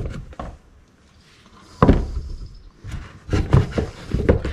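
Heavy canvas saddlebag being shifted and handled on a wooden workbench: scattered clicks and rustling, with a sharp knock a little under two seconds in.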